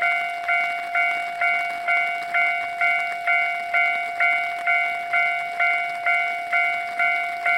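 Japanese railway level-crossing warning alarm ringing its 'kan-kan' signal: an even, repeating bell-like strike about twice a second over a held ringing tone, warning that a train is approaching.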